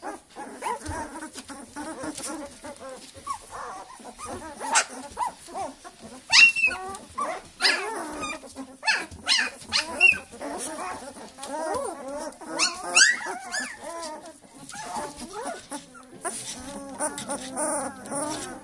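A litter of 15-day-old Northern Inuit wolfdog puppies whining and grunting non-stop as they clamber over each other in play, with a few sharp high-pitched yelps, the loudest about six and a half and thirteen seconds in.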